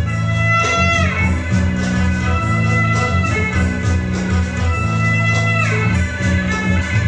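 Instrumental music: held high notes that slide down in pitch twice, over a steady low bass.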